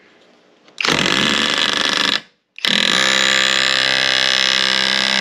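Skil 12-volt cordless auto hammer driving a framing nail into a wood beam, rapid blows with a steady buzzing pitch. It runs in two goes: a short one about a second in, then after a brief pause a longer one that sinks the nail.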